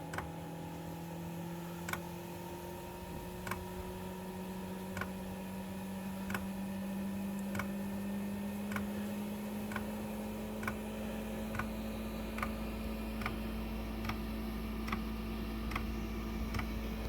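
Planar 2 kW diesel air heater starting up: the fuel dosing pump ticks steadily, the ticks coming faster, from about one every second and a half to more than one a second, over a steady fan hum that rises slowly in pitch. About ten seconds in a low rumble joins as the burner kicks in.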